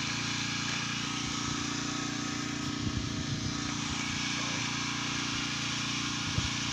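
Steady engine drone aboard a fishing boat, an even hum with a few faint knocks about three seconds in and again near the end.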